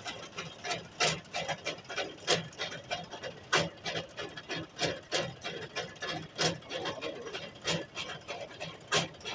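Tractor-mounted borewell rig hoisting a submersible pump's column pipe out of the borewell: irregular mechanical knocks and clatter, about two or three a second, over a low steady hum.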